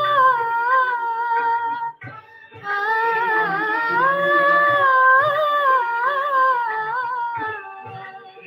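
A young woman singing a slow film-song melody solo, holding long notes that bend and waver in pitch. She breaks off for a breath about two seconds in, then sings a further long phrase that fades out near the end.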